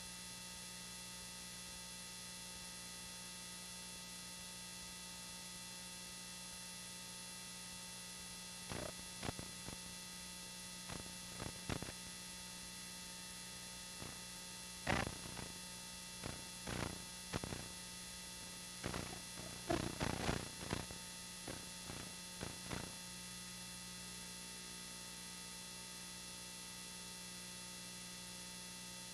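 Steady electrical hum with many overtones, typical of the degraded audio track of an old videotape. In the middle, a scattered run of short knocks and clicks of uneven loudness.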